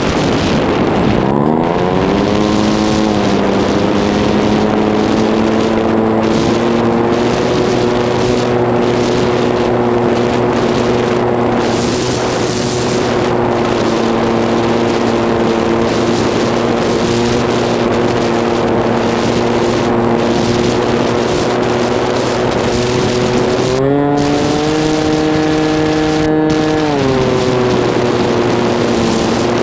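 Electric motor and propeller of an EasyStar II RC model plane, heard from its onboard camera in flight, humming steadily over a hiss of rushing air. The pitch dips and climbs back in the first few seconds. Near the end it rises for about three seconds as the throttle is opened, then settles back.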